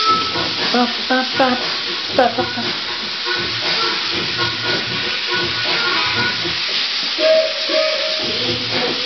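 Steam locomotive sound, played back from a recording: a steady hiss of steam, with a short lower whistle-like tone about seven seconds in. A child's high voice is heard briefly in the first couple of seconds.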